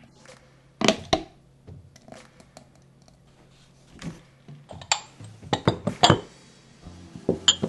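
Utensils and glass dishes clinking in sharp, separate knocks: two loud ones about a second in, a quick cluster around five to six seconds, and two more near the end.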